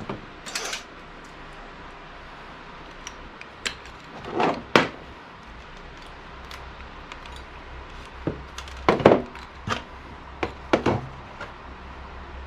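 Scattered clinks and knocks of metal parts and hand tools being handled while a gas wall heater is taken apart for scrap, some ringing briefly, with the loudest clatter about four seconds in and again around nine to eleven seconds in.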